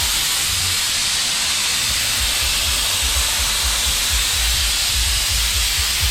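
Steady, loud hiss of compressed air at a punctured truck tyre pumped up to high pressure, with low rumbling thumps underneath.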